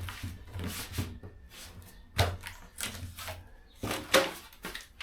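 Sound-deadening sheet being handled and bent against a van wheel well: a string of short rustling, crinkling scrapes, the loudest about two and four seconds in.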